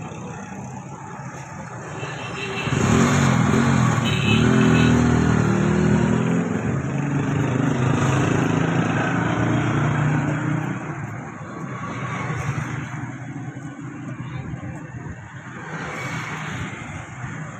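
A motor vehicle's engine passes close by on the street, rising and falling in pitch as it revs. It is loudest for several seconds from about two and a half seconds in, then fades into steady traffic noise.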